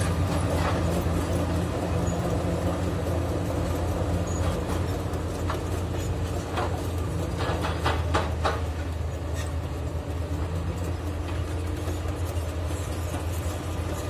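Komatsu D85 bulldozer's diesel engine running steadily under load, with a scatter of sharp clanks and knocks from the tracks and pushed rock, thickest around the middle.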